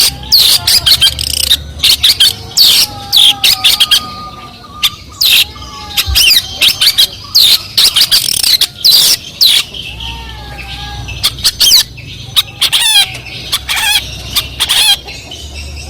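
Long-tailed shrike (cendet) singing a fast, loud medley of sharp chirps, short trills and a few lower whistled notes, packed with imitated calls of other birds such as sparrows, canaries and lovebirds.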